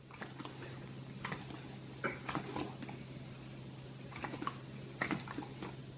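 Scattered soft clicks and taps over a steady low hum, with a couple of louder taps about two and five seconds in.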